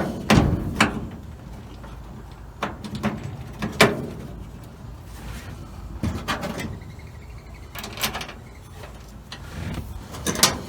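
Irregular clicks and clunks of metal parts and tools being handled, about a dozen sharp knocks spread unevenly, as the ignition switch is refitted under the dash.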